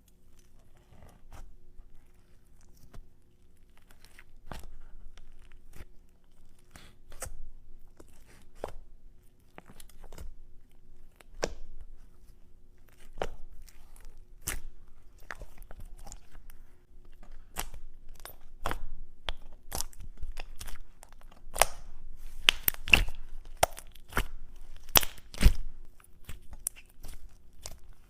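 Slime being squeezed and mixed by hand, making irregular crackles, pops and tearing sounds that come thicker and louder in the last few seconds.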